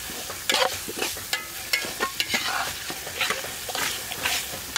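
Metal spatula stirring and scraping a spice paste frying in oil in an aluminium pot: a steady sizzle broken by repeated sharp scrapes of metal against the pot.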